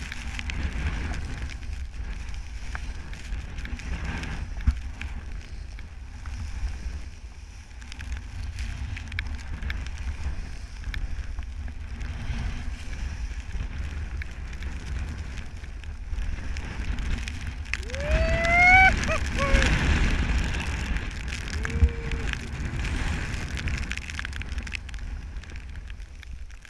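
Wind buffeting the microphone of a pole-mounted action camera as a skier runs through deep powder snow, with the skis swishing through the snow. About two-thirds of the way in, a person's voice gives a brief whoop, its pitch rising then falling.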